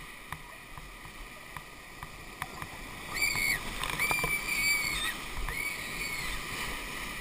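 Whitewater rapid rushing around an inflatable raft, with a few sharp knocks in the first half. About three seconds in the water gets louder as the raft runs the rapid, and three short, high, held tones sound over it.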